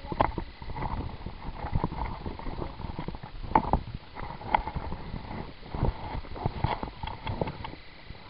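Footsteps on gravel and dirt with tactical gear and clothing rustling: irregular scuffs and thumps, with a few short high ticks near the end.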